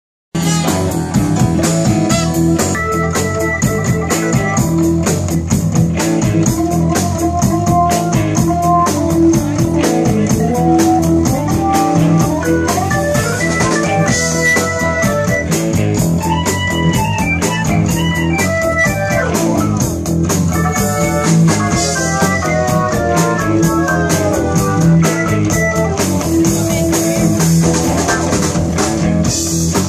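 Live band playing blues-rock with drums, electric guitar and saxophone over a steady beat. The music cuts in abruptly mid-song.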